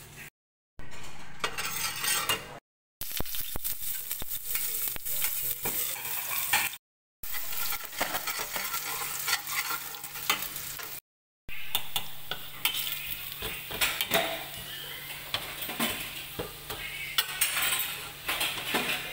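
Chopped garlic sizzling and crackling in hot oil in a stainless steel frying pan while a spatula stirs it, scraping and clicking against the pan. The sound cuts out to silence for a moment four times.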